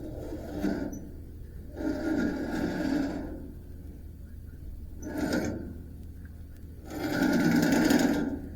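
Band sawmill wheel turning in four short spurts, each giving a rough, crunching rumble from its bearing, which the owner takes for a bad bearing that may need changing. The last spurt, near the end, is the longest and loudest.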